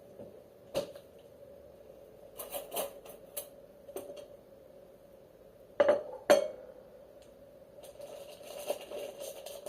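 Dishes and cutlery being handled in a kitchen: scattered light clinks and knocks, with two louder knocks about six seconds in. Near the end a steady, hissy rustle sets in.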